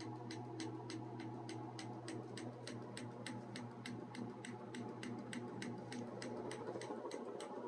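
Lasko ceiling fan running: its motor hums steadily, with a light regular tick about four times a second.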